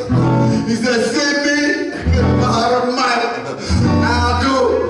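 Music with a low bass line changing notes every second or two, and a singing voice over it.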